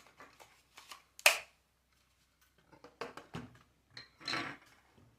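Plastic clicks and rustling from handling a DJI Mini 4 Pro drone as its battery is plugged in, with one loud sharp click about a second in.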